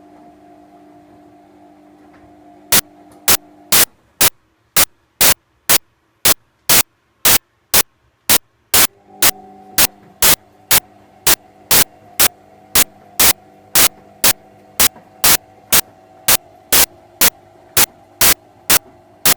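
Washing machine running with a steady hum that stops for about five seconds and then starts again. From about three seconds in, loud, sharp clicks sound evenly about twice a second, on through the pause.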